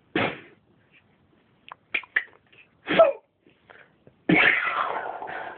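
A man imitating gunfire and reloading with his mouth: a sharp blast, a few small clicking sounds, another blast, and a longer blast near the end.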